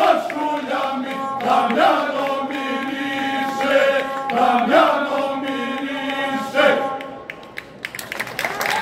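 Male folk choir singing a Serbian song in the traditional izvorno style, several voices holding long notes together. The singing ends about seven seconds in, and applause starts near the end.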